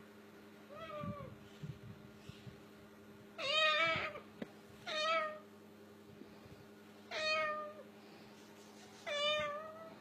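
White cockatoo mimicking a cat's meow: a faint meow, then four louder drawn-out meows spaced about two seconds apart.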